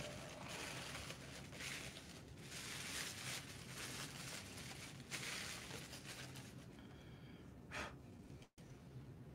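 Faint rustling and crinkling of paper and plastic packing material as a statue is pulled out of its box, in irregular swells that thin out after about six seconds. The sound cuts out completely for a moment near the end.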